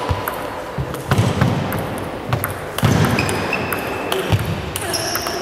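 Table tennis rally: the celluloid ball clicking off the bats and bouncing on the table at an uneven quick pace. There are a few heavier low thuds and some short high squeaks between the strokes.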